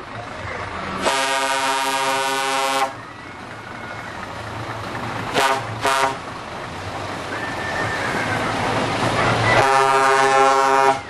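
Truck air horn sounding: a long steady blast about a second in, two short toots a little past the middle, and another long blast near the end.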